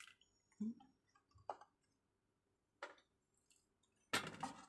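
A few faint, scattered clicks and taps of kitchen handling around a stainless steel pot as milk is poured in from a carton. Near the end comes a louder stretch of clattering and scraping.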